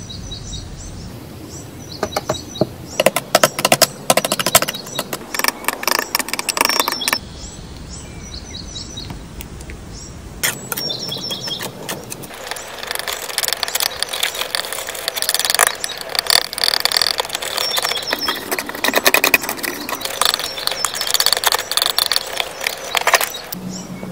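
Metal spatula and palette knife scraping across a hard smooth surface as powdered pigment is mixed into wet watercolor paint. The first half has short bursts of dry, gritty scraping and tapping. The second half has longer, wetter smearing strokes.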